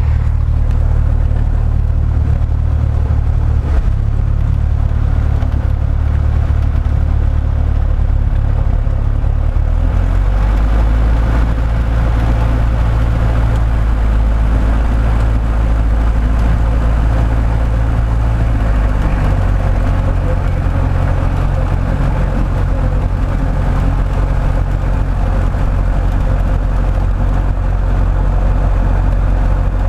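Light propeller aircraft's engine and propeller running close up, on the runway for takeoff. The engine note changes about ten seconds in and again near twenty seconds.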